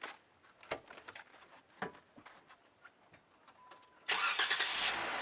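A few scattered clicks and knocks and a brief beep, then about four seconds in a car engine starts and keeps running steadily.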